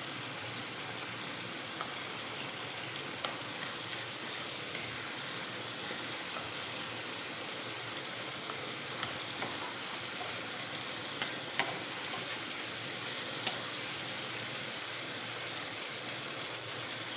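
Chicken curry sizzling steadily in a pan on the stove, with a few short sharp pops.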